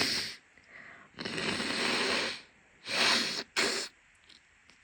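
A woman with a cold sniffing and sneezing: a run of four noisy nasal bursts, the longest lasting about a second, the last one short and sudden.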